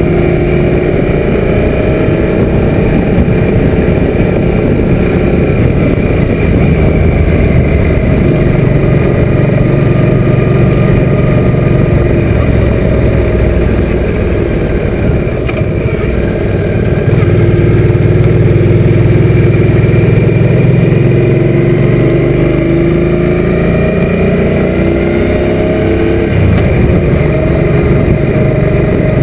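Suzuki M800 motorcycle's V-twin engine running at road speed, heard from a camera mounted on the bike, its pitch rising and falling as the speed changes, with heavy wind noise on the microphone.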